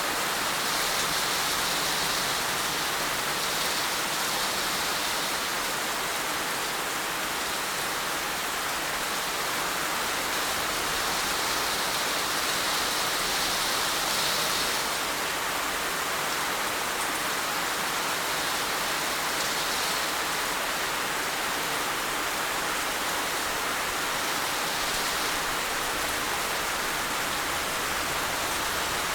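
Heavy rain falling steadily in a dense, even hiss with no distinct drops or pauses.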